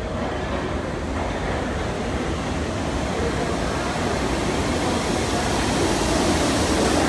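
A Bombardier R62A subway train approaching along the track into an underground station, its running noise growing steadily louder as it nears.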